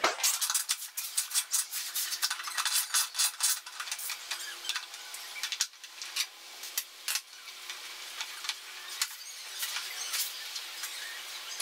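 A hand ratchet with a hex socket clicking in quick runs of small metallic clicks while bolts holding a motorcycle fuel tank are worked loose.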